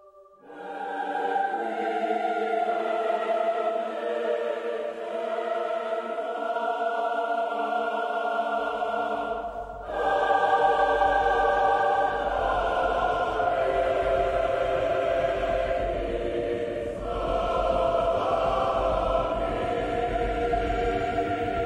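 Orchestral film score with a choir singing slow, sustained chords. It enters about half a second in, a deep low bass comes in underneath around eight seconds in, and the music swells louder at about ten seconds.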